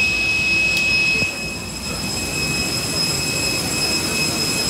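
Steady high-pitched whine over a low rumble from a parked airliner and ramp equipment at the gate, heard from the jet bridge. About a second in, the whine fades and the noise turns duller and quieter.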